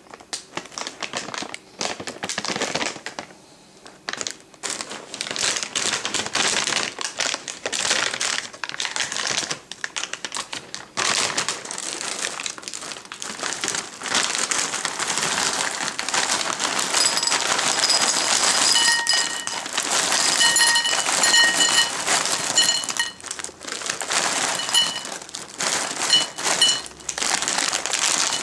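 Plastic cereal bag crinkling as it is handled and opened, then oatmeal-squares cereal pouring from the bag into a glass bowl in the second half, the pieces clattering and making the glass ring in short pings.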